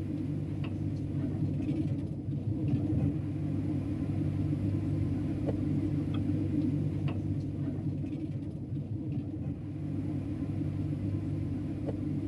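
Steady low rumble with a hum of several steady low tones, and a few faint clicks.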